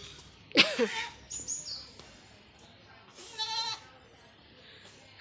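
A person sneezing once about half a second in: a sudden loud burst followed by a falling voiced tail. A short, high voiced sound follows a little past the middle.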